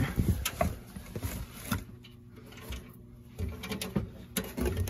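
Scattered knocks and clicks from handling things under a cabinet, with a quieter pause in the middle.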